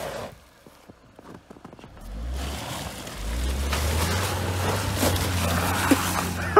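Subaru Forester's engine pulling hard through a snow-filled ditch, its tyres churning snow and slushy water. The engine drops away for about two seconds, then comes back and grows louder with a rushing splash of slush over it.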